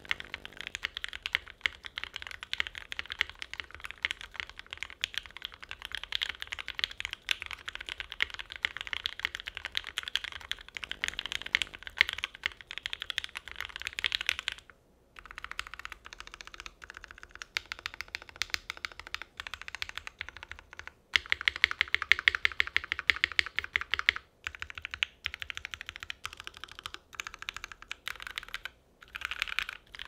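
Fast typing on a Plume65 mechanical keyboard: lubed Gateron Ink V1 linear switches on a full aluminum plate under GMK DMG keycaps, a dense, steady stream of key clacks. The typing stops briefly about halfway through, then resumes with some louder strokes.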